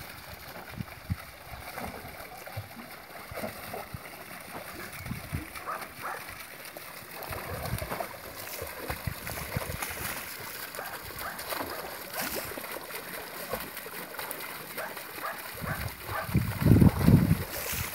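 An American Staffordshire Terrier splashing and paddling in a small stone fountain basin while the fountain's jet pours and splatters into the water. The dog bites at the jet, and the heaviest splashing comes near the end.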